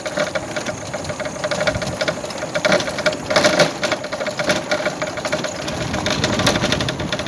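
Motorcycle engine running as the bike is ridden along a rough dirt road, heard from the rider's seat: a steady, rapid, even beat of firing pulses.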